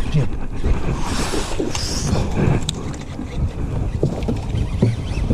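Wind rumbling on the microphone, with a brief rushing hiss about a second in.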